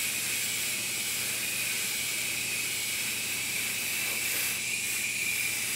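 Airbrush spraying thinned paint in a steady hiss, over a low steady hum.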